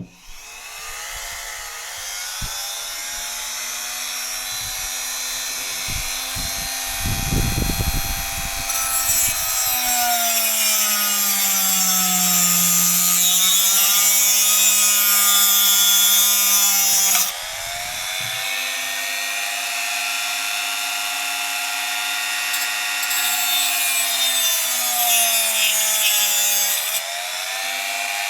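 A small high-speed electric motor running with a whine whose pitch dips and recovers several times, as if loaded and unloaded, over a steady hiss. A burst of low knocking comes about seven seconds in.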